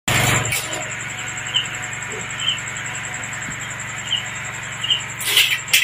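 Stems of curry leaves rustling and snapping as the leaves are stripped off by hand, loudest near the start and near the end, over a steady low hum and a constant high pulsing tone, with a few faint short chirps.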